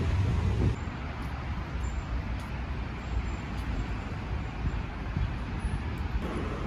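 Outdoor street ambience: a steady low rumble of road traffic with a general city hiss, louder in the first second before settling.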